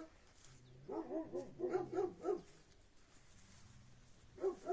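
Dogs barking in short high yips: a quick run of about ten barks from about a second in, then a couple more near the end.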